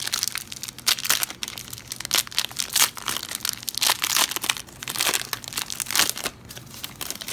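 Plastic wrapper of a Panini Donruss football-card hanger pack being torn open and crinkled by hand, a run of irregular crackles and rustles.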